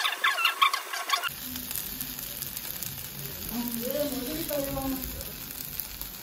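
Wooden spatulas scraping and stirring fried rice on a hot griddle pan for about a second, then the rice sizzling steadily on the pan, with voices faint in the background midway.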